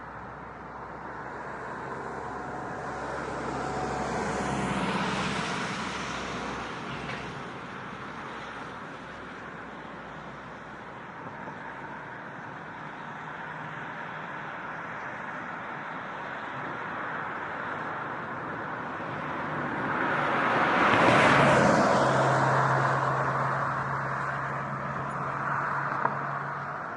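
Two cars passing by, tyre and engine noise swelling and fading away: the first peaks about five seconds in, the second, louder, about twenty seconds in, with a low engine hum lingering as it moves off.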